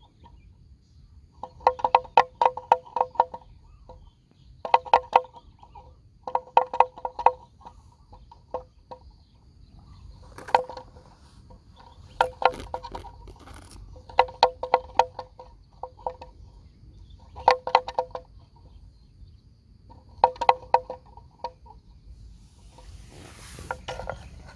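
A bell on a grazing water buffalo clonking in quick bursts of strokes, a cluster about every two seconds as the animal tugs at grass.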